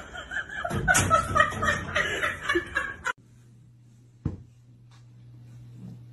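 People laughing, cutting off abruptly about three seconds in; after that a faint steady low hum with a single short knock.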